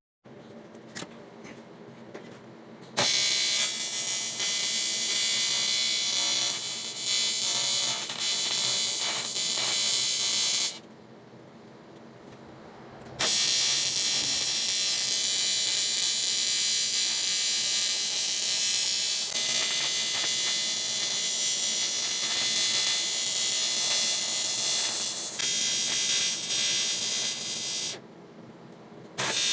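Electric welding arc buzzing steadily while laying a weld bead into a cracked cast aluminum wheel. It runs in two long passes with a pause of about two seconds between them, then starts again near the end.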